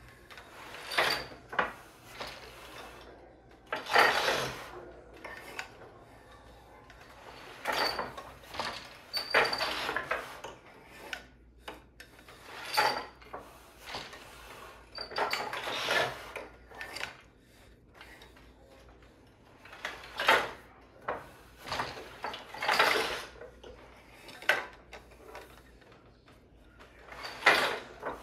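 A wooden loom being worked: shafts lifting and dropping, a shuttle passed through the shed and the beater knocking the weft in. It comes as about a dozen sharp wooden clacks and knocks at irregular gaps of one to four seconds.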